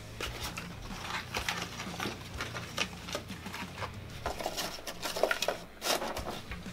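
Irregular crunching and clicking of people eating Big Macs: chewing, with cardboard burger boxes being handled and opened. There is a sharper click about six seconds in.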